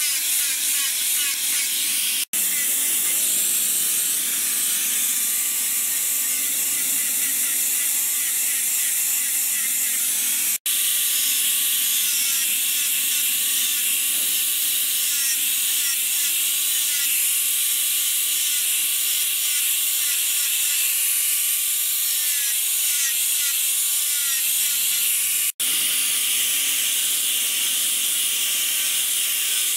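Electric angle grinder with a sanding pad running steadily while it sands a wooden handle: a continuous high whine and rasp whose pitch wavers slightly as the pad bears on the wood. The sound breaks off for an instant three times.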